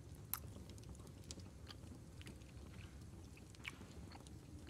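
Faint sounds of people eating: chewing and a few small clicks of cutlery, over a low steady room hum.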